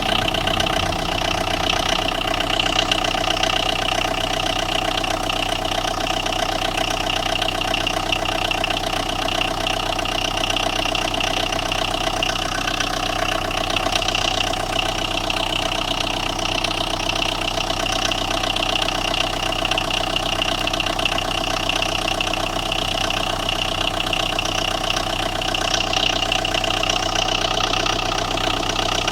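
Tata Indigo's diesel engine idling steadily with a knocking clatter. The mechanic traces the knock to a blown ECM fuse that leaves the engine control module and radiator fan without power.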